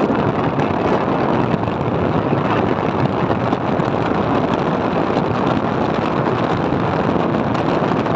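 Steady rush of wind on the microphone over a motor scooter riding along a road, its engine and tyre noise blended into one even roar-like noise.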